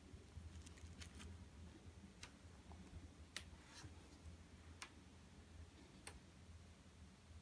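Faint, irregular clicks and a brief light rustle of a paperback book being handled and opened by hand, over a low steady hum.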